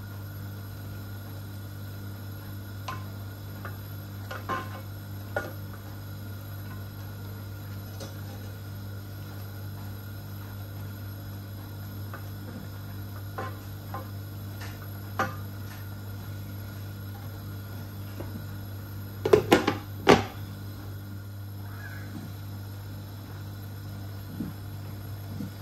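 Kitchen utensils clicking and knocking against cookware now and then over a steady low hum, with a short run of loud knocks about three-quarters of the way through.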